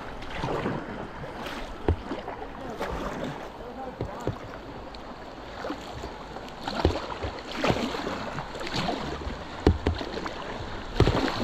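Rushing river whitewater, a steady wash of moving water, with irregular sharp splashes and knocks from kayak paddling, the loudest near the end.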